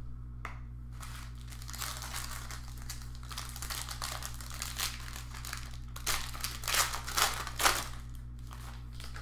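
Plastic packaging crinkling and crackling as trading card packs are handled and opened, loudest in a cluster of crackles in the last few seconds.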